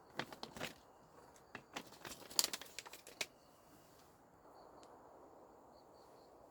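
Irregular crinkling, rustling and small clicks of something being handled, in two bursts in the first half, over a faint steady background hiss.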